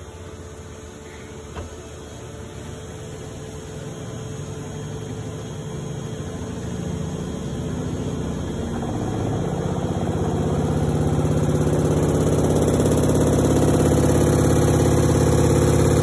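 Electrolux 15 kg top-loading washing machine spinning up: the motor and basket hum grows steadily louder. From about halfway through, a strong vibration from the machine's suspension springs builds in.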